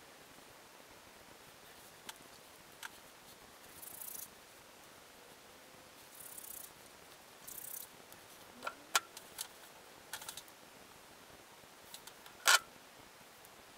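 Hands twisting and rubbing dreadlocks, making short scratchy rustles of hair, with scattered light clicks and taps; the sharpest click comes near the end.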